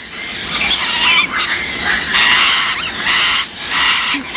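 Parrots squawking loudly: a run of harsh, grating screeches one after another with short breaks.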